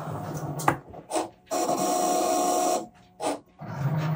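Cricut Maker 3 cutting machine running a cut on smart vinyl: its motors whir in start-stop spurts as the blade carriage and rollers move, with short sharp bursts and a louder steady whine for over a second in the middle.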